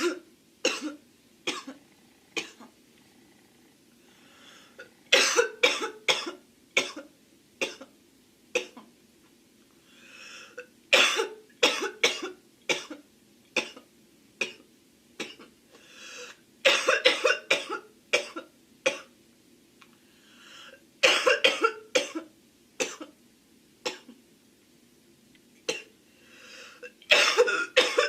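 A girl coughing in repeated fits, each a quick run of hard coughs, about every five seconds, with drawn-in breaths audible between the fits.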